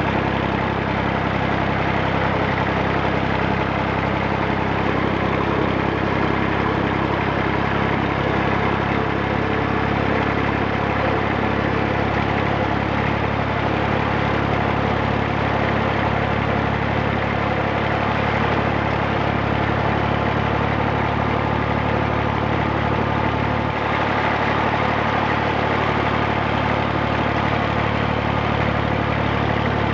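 1959 Fordson Dexta's three-cylinder Perkins diesel engine running steadily, with a slight change in its low note about two thirds of the way through.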